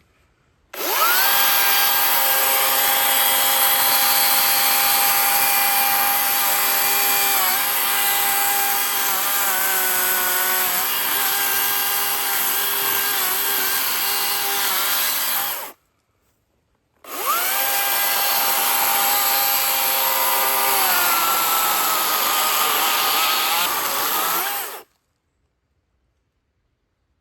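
Chainsaw cutting into a big tree stump near ground level: it spins up with a rising whine, runs for about fifteen seconds with its pitch sagging as the chain bogs into the wood, stops suddenly, then runs again for about eight seconds and cuts off. The stump is proving stubborn even with a brand-new chain.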